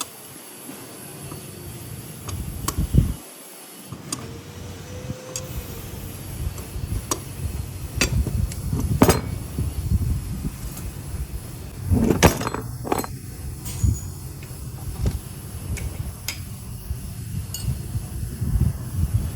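Scattered metallic clinks and knocks, a few of them sharper about 8, 9 and 12 seconds in, over a steady low rumble.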